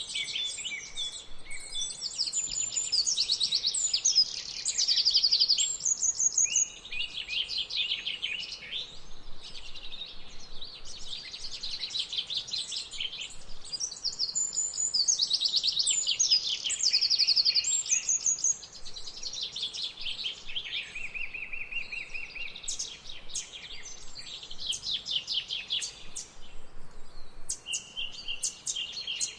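Songbirds singing: overlapping phrases of rapid trills and chirps, one after another without a break.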